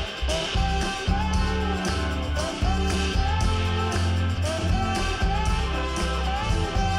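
Background music with guitar over a steady bass.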